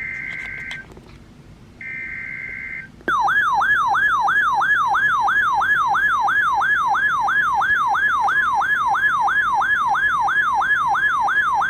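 Two one-second bursts of Emergency Alert System SAME header data, a steady two-tone warble, then a loud warbling siren-like alert tone sweeping up and down about three times a second from about three seconds in: the opening signals of a new emergency alert.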